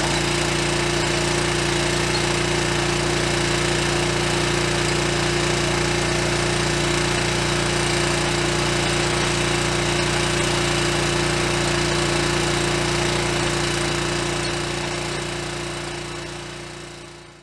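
Small gasoline engine of a walk-behind trencher running steadily under load as its digging chain cuts a trench through clay soil, fading out near the end.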